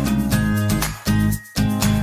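Upbeat background music with plucked guitar notes and a steady beat.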